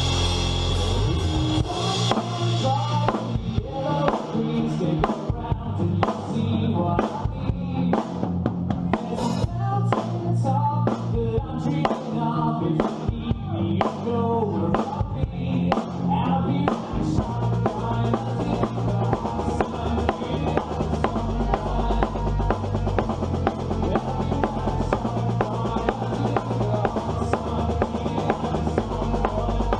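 A band playing an upbeat pop-rock song, with drum kit, bass and a singing voice.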